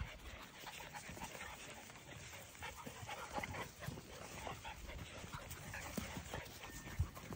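Puppies panting and scuffling in the grass close by, with many soft short scrapes and rustles.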